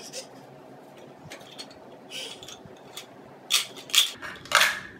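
Plastic toy cookware and toy food clattering: scattered light clicks and knocks, then three louder clatters in the last second and a half.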